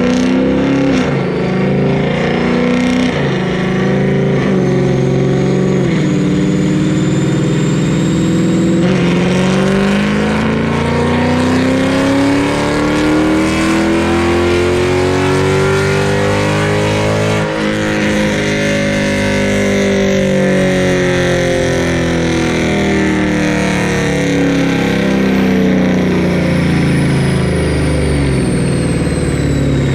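Dodge Charger Daytona 392's 6.4-litre HEMI V8, with long-tube headers and catless mid-pipes, making a full-throttle pull on a chassis dyno. The loud engine note climbs steadily to a peak about 17 seconds in, then falls as the car coasts down.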